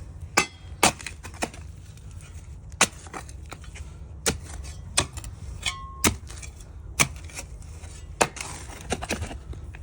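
Shovel digging a post hole: the blade chops into the ground again and again in sharp, uneven strikes, roughly one a second.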